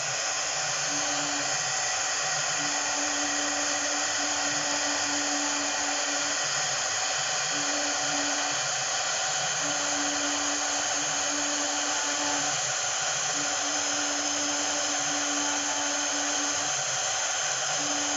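Air-cooled 3.5 kW spindle of an ABT-6090-H CNC router running steadily with an even, hissing whine. A lower hum starts and stops every second or two as the machine works.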